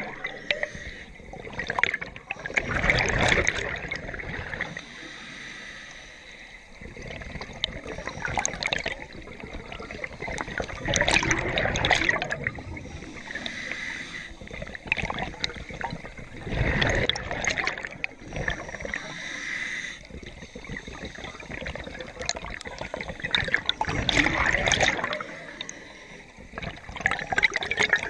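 Scuba diver breathing through a regulator underwater: exhaled bubbles gurgle out in a loud burst every few seconds, with quieter stretches between.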